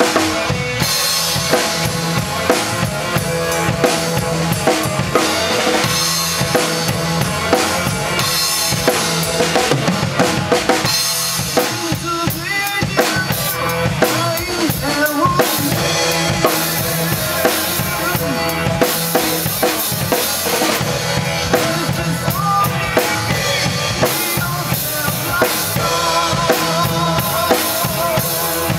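Drum kit played live with kick, snare and cymbals over a recorded rock song, the drummer improvising along to a track whose main rhythm runs in 7/8 and 4/4. The playing is continuous and loud, with the backing band's pitched instruments audible under the drums.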